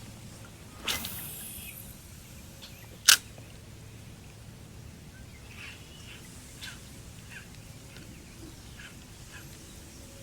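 Quiet open-air background with faint, scattered bird chirps. A brief swish comes about a second in and a single sharp click about three seconds in.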